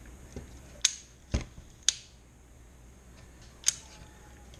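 Piscifun Torrent baitcasting reel being worked by hand: three separate sharp clicks from its mechanism, with a duller knock between the first two.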